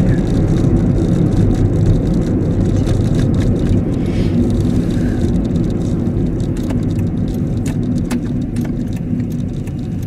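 Steady low rumble of a car heard from inside the cabin, with scattered light clicks and rattles over it.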